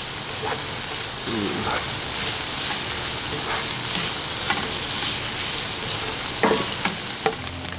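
Diced boiled pork, with garlic and onion, sizzling in hot oil in a pan as it browns. A spatula stirs it throughout, with short scrapes and taps against the pan.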